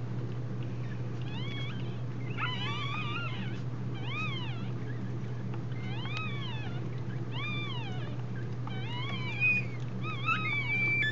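Newborn Scottish terrier puppies squeaking as they nurse: a run of short, high squeals, each rising then falling in pitch, about one a second, over a steady low hum.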